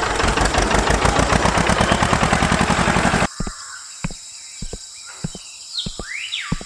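Tractor engine running with a fast, rattling chug that cuts off suddenly about three seconds in. Then birds chirping in short rising and falling calls over a quiet outdoor background, with a few soft clicks.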